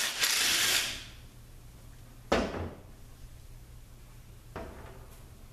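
Hand tools and metal parts being handled on a transmission case: a short scrape at the start, one sharp clank about two seconds in, and a lighter click near the end, over a low steady hum.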